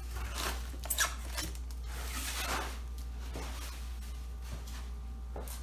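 Bubble wrap being handled and pulled off, rustling and crinkling in several short swishes with a couple of sharp clicks about a second in, over a steady low hum.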